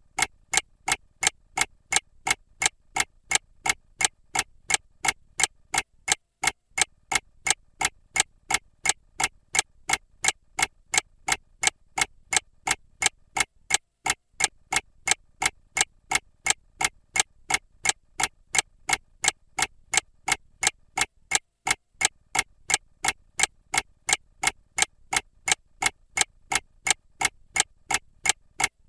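Mechanical clock ticking at a fast, even rate, each tick a sharp, clean click.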